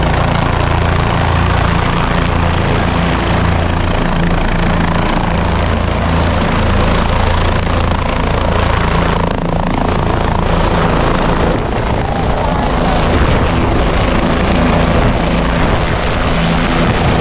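Helicopter flying in and setting down on a helipad, its rotor and engine loud and continuous, with a deep pulsing rotor beat.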